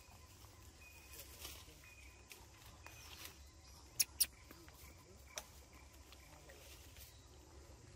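Quiet forest background with a few faint, short high chirps in the first few seconds. About halfway through come two sharp clicks in quick succession, the loudest sounds, and a lighter tick follows a second later.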